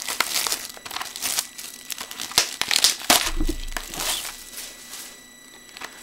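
Plastic wrapping crinkling and tearing in irregular bursts as it is handled, with a dull bump about three seconds in. A faint steady high whine from a computer fan runs underneath.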